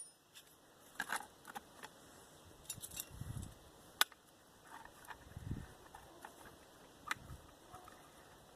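Scattered light metallic clicks and clinks of hand tools being handled, with a few faint dull thumps.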